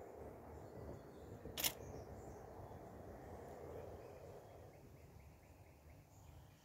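A single sharp camera shutter click about one and a half seconds in, over faint steady outdoor background noise.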